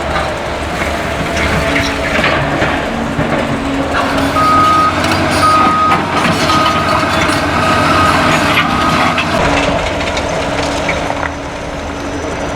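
Cat excavator diesel engine running steadily on a demolition site, with scattered knocks and clatter of debris. In the middle a reversing alarm beeps five times, about once a second.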